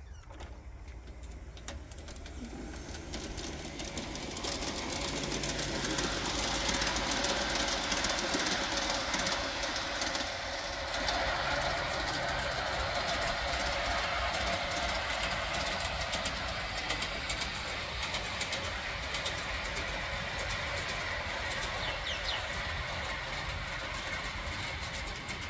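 G scale model Amtrak locomotive and passenger cars running along garden railway track, a steady rolling rumble with many sharp clicks of the wheels over the rail joints. It grows louder over the first several seconds as the train approaches, then runs on steadily.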